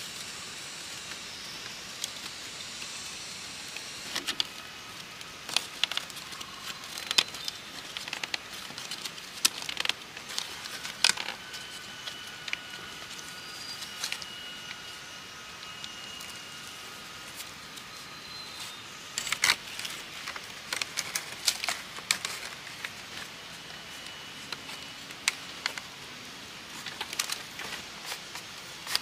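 Thin strips of split green bamboo clicking and scraping as they are woven by hand through the ribs of a bamboo basket, in irregular sharp ticks, busiest in two spells.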